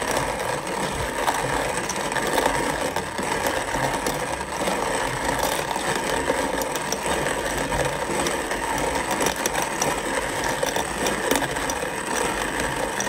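Kalita hand-cranked coffee mill grinding coffee beans: a steady gritty crunching and rattling as the handle is turned without pause.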